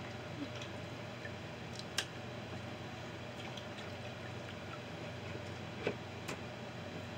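Steady low room hum with a few faint sharp clicks and ticks, about two seconds in and twice near the end, from catfish fillet pieces being handled on a plastic cutting board.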